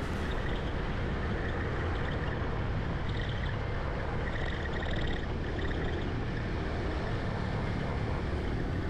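Honda Air Blade scooter riding through city traffic: steady wind rush and road noise over a low engine rumble, unbroken and even in level.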